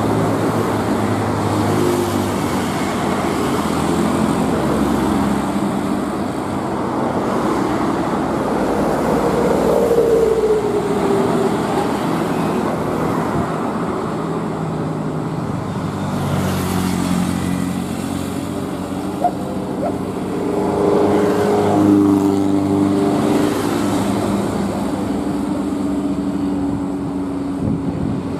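Heavy road traffic of trucks, cars and motorcycles moving slowly past, with engines running throughout. One engine note drops in pitch about ten seconds in, and a steady engine drone holds from about twenty seconds in.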